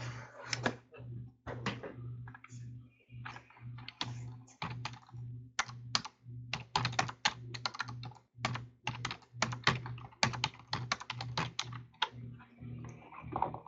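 Typing on a computer keyboard: irregular runs of quick key clicks, over a steady low hum.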